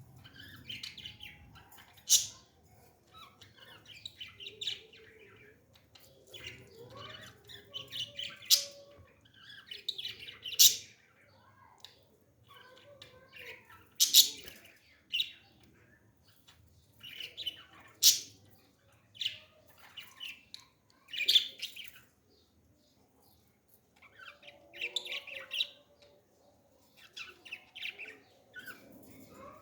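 Parrots chattering and chirping, broken every few seconds by short, sharp, loud squawks, with a brief lull a little past the middle.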